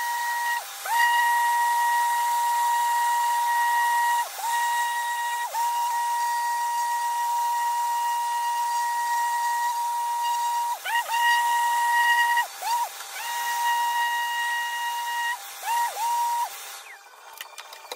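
Random orbital sander with dust extraction, sanding down the repaired door sill: a steady high-pitched motor whine over the hiss of the abrasive. The whine dips briefly in pitch several times, and the sander winds down and stops near the end.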